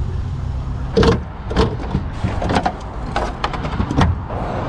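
Yellow plastic jerry cans being handled, with a series of hollow knocks and clicks from the cans, their spouts and their caps, roughly one every half second from about a second in.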